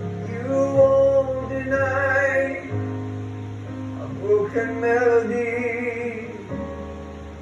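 A man singing a slow gospel worship song over live instrumental accompaniment, with guitar and sustained bass notes. He holds two long sung phrases, the second starting about halfway through.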